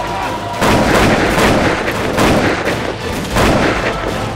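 Dubbed battle sound effects of gunfire and blasts: three louder bursts about a second and a half apart over a continuous din.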